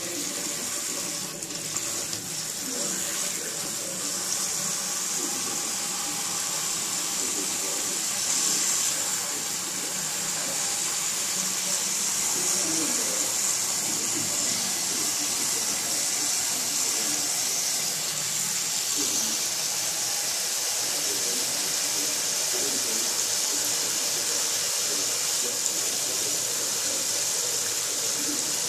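Kitchen tap running steadily onto water spinach leaves in a pot of water as they are rinsed.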